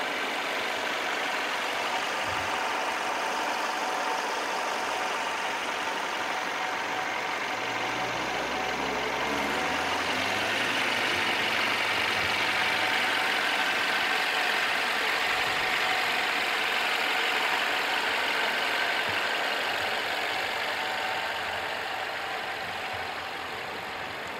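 2017 Mercedes-Benz E200's 2.0-litre turbocharged M274 inline-four idling steadily. The sound grows a little louder about ten seconds in and eases back near the end.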